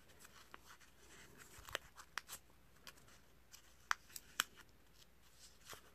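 Faint handling of a small cut-out paper template: soft rustling and several crisp paper clicks as it is bent and creased between the fingers, the sharpest around four seconds in.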